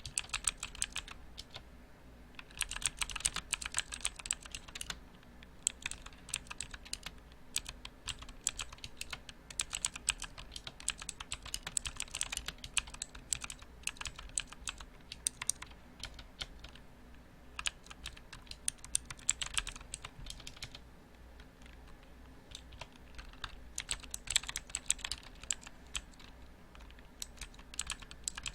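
Mechanical keyboard being typed on: rapid clacking keystrokes in bursts, with short pauses between runs.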